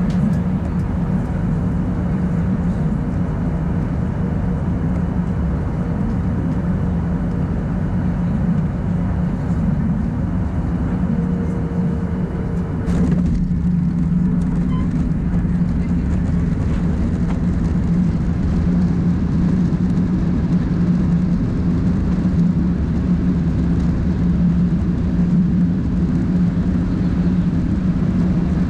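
Cabin noise of a Boeing 737-800 landing, heard from a window seat over the wing: a steady rumble of the engines and airflow on short final, then a brief thump about 13 seconds in as the wheels meet the runway. After it the rumble is a little louder while the jet rolls out and slows with its spoilers raised.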